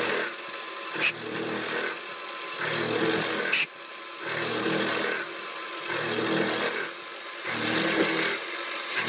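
Three-flute end mill on an X3 small CNC mill cutting 6Al-4V titanium on a profile pass, over the spindle's hum. The cutting noise swells and eases in a regular cycle about every second and a half. It is a cut that sounds healthy.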